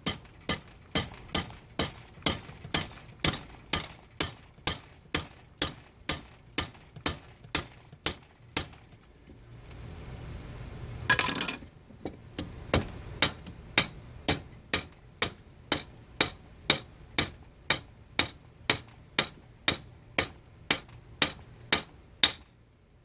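Steady light hammer taps, about two a second, driving a bronze bushing into a Carter carburetor's throttle shaft bore. The tapping pauses for a few seconds, there is a short louder clatter about eleven seconds in, and then the tapping resumes.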